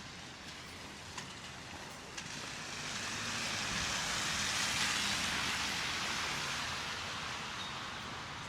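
A vehicle passing on a wet, slushy street, its tyre hiss swelling about three seconds in, peaking midway and fading away.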